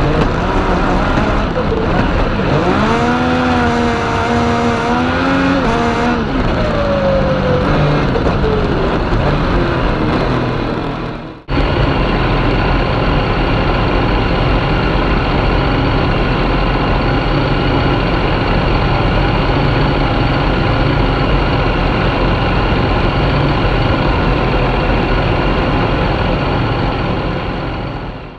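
Yamaha MT-09 three-cylinder motorcycle engine in a kartcross, heard onboard. It revs up and holds, then falls away in pitch. After a sudden cut about eleven seconds in, it runs steadily at an even speed.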